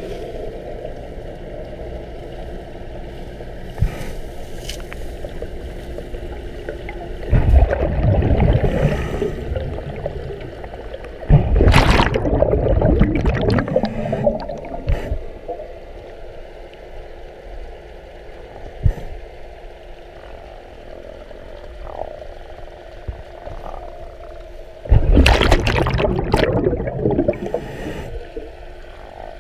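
Underwater sound from a camera on a scuba diver's head: a steady low hum, broken three times by a few seconds of loud gurgling bubbles as the diver exhales through his regulator.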